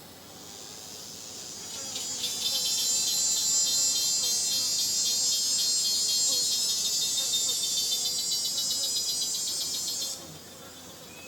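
A loud, high-pitched insect buzz made of very rapid pulses. It swells over the first two seconds, holds steady, then cuts off suddenly about ten seconds in, over a faint rainforest background.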